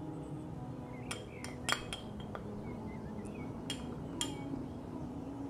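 Small glass bowl tapped against the rim of a ceramic mug to knock out the last of the baking powder: several light clinks spread over a few seconds.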